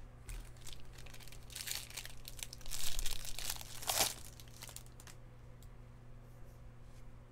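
A baseball card pack's wrapper being torn open and crinkled by hand, a run of crackling that peaks about three seconds in and ends with a sharp rip about a second later.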